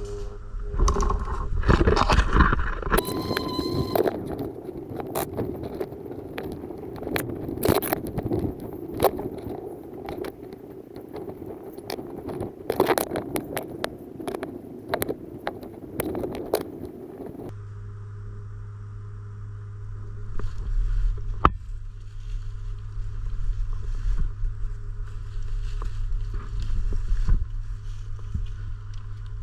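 Irregular sharp clicks and knocks over rustling movement noise; about two-thirds of the way in it cuts to a steady low hum with only a few scattered clicks.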